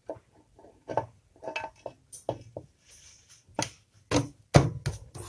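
Metal clutch cover of a Bajaj Boxer engine knocking and clacking against the crankcase as it is fitted and pressed into place: about a dozen sharp knocks at uneven spacing, the loudest in the last second and a half.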